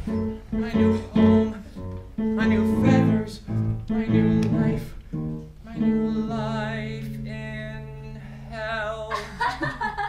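Acoustic guitar strummed and plucked in a song, with a singer holding one long note with vibrato from about six seconds in.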